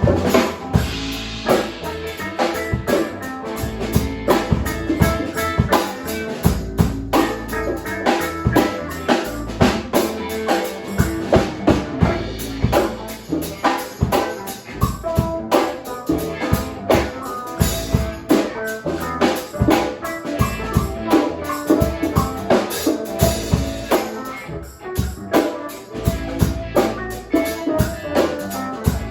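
Background music with drums and guitar and a steady beat.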